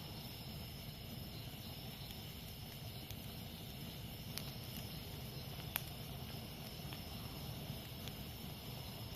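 Campfire burning with a few scattered crackles and one sharp pop a little past the middle, over a steady chorus of jungle insects.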